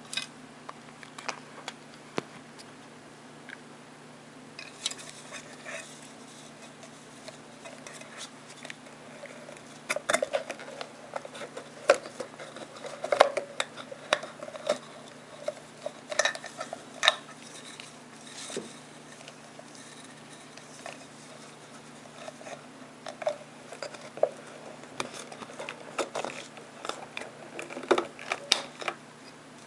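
Irregular light clicks, taps and rustles of fingers handling thin aluminium drink-can parts close to the microphone, coming in two busy spells.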